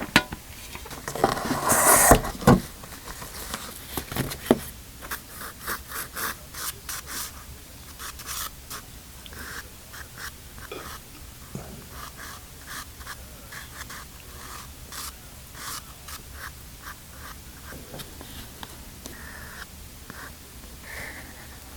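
Pastel sticks stroking and scratching across paper in a long run of short, quick strokes, with a louder, longer scrape about two seconds in.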